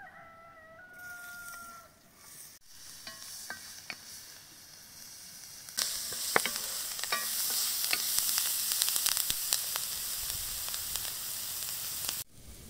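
A rooster crows briefly at the start. About six seconds in, diced onion sizzles loudly in a hot black wok over a campfire while a wooden spatula stirs it with small clicks and scrapes. The sizzle cuts off sharply near the end.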